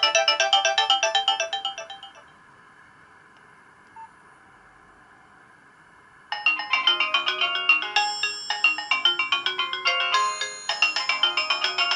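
Nokia 2865i polyphonic MIDI ringtones: one melody fades out in the first two seconds, a few seconds of faint hiss follow, and a new ringtone melody starts abruptly about six seconds in.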